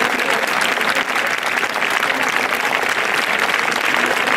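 Large crowd applauding, a steady dense clapping that carries on without a break.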